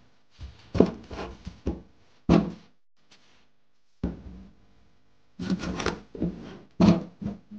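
Irregular knocks and clatters of objects being handled, several quick hits near the start, a few single ones in the middle, and another quick run in the second half.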